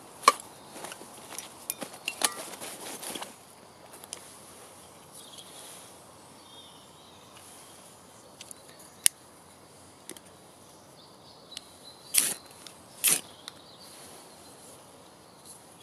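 Rustling and light knocks of camping gear being handled for the first few seconds. Later a ferrocerium fire-steel rod is struck with its scraper, two short rasping strikes about a second apart near the end, to light a methylated-spirit stove.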